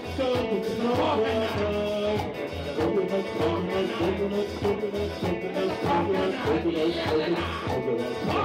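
Live calypso band playing an instrumental passage: a drum kit keeping a steady beat under a bass line, with a melody line on top.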